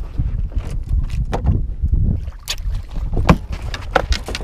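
Wind buffeting the microphone with a steady low rumble, broken by several short sharp sounds of water and handling at the side of a bass boat as a fish is landed by hand, the loudest a little over three seconds in.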